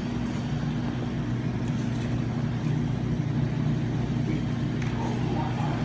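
Steady low machine hum with a faint rumble beneath it.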